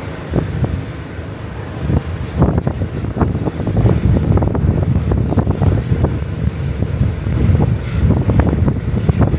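Strong wind buffeting the microphone: a loud low rumble with irregular gusts.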